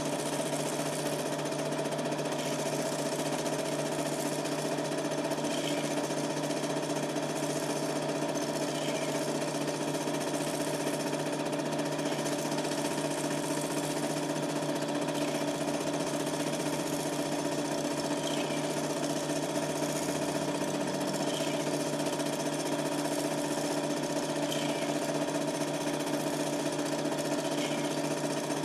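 Super 8 film projector running steadily, a constant mechanical hum of its motor and film drive picked up by a camcorder microphone in the room, with a faint short chirp about every three seconds.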